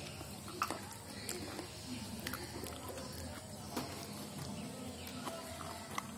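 Faint close-up mouth sounds of someone chewing food, with a few scattered soft clicks.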